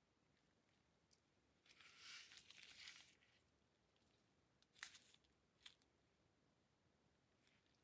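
Faint handling noise of gloved hands on a pistol: a soft rustle of about a second and a half starting near two seconds in, then two light clicks about five seconds in.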